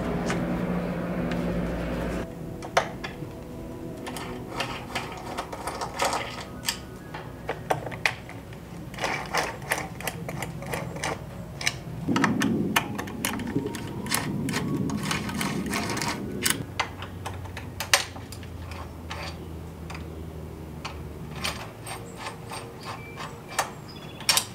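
Irregular light clicks and taps of metal tools and small bike parts being handled while a mountain bike's stem is fitted and its bolts are turned with a hex key, over a low steady hum, with a stretch of louder rustling about halfway through.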